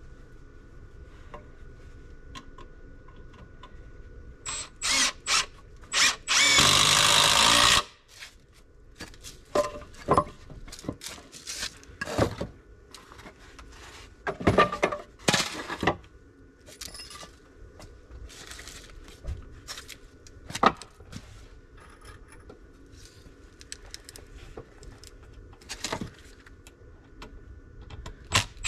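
Cordless drill running into wood: a few short bursts, then one long run of about a second and a half about six seconds in, with more short bursts near the end. Between them, scattered knocks and clatter of lumber and the tool being handled.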